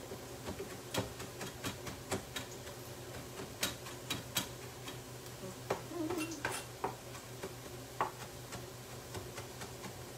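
Irregular sharp clicks and light taps, a few a second, over a low steady hum, with a short flurry of higher sounds about six seconds in.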